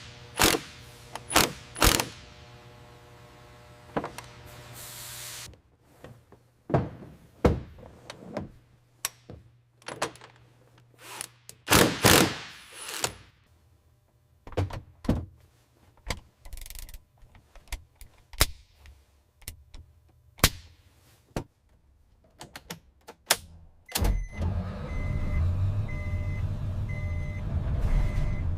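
A run of separate metal clunks, clicks and knocks as a heavy part is pushed into place and its clips engage, with a few brief hissing sweeps between them. About 24 seconds in, a steady low mechanical hum starts.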